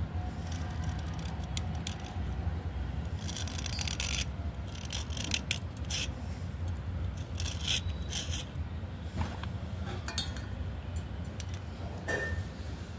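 Craft knife blade scraping a wet slate pencil, shaving off flakes in runs of short rasping strokes with pauses between them, over a steady low hum.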